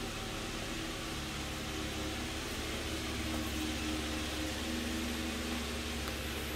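The 3.8-litre V6 engine of a 2013 Hyundai Genesis idling steadily, a low, even hum under a constant hiss.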